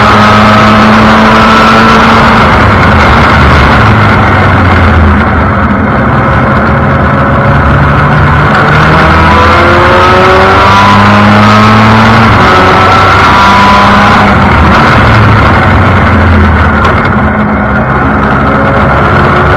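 Formula Mazda race car's two-rotor Mazda rotary engine heard from the cockpit under hard acceleration, revs climbing and dropping back with each gear change over rushing wind noise. The throttle lifts briefly about five seconds in and again near the end.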